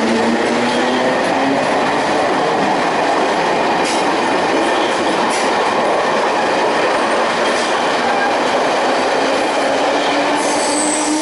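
CPTM Série 1100 commuter train running loudly at the station, a dense rumbling clatter of wheels over track with a few sharp clicks. Near the end, a motor hum rises in pitch as the train pulls away.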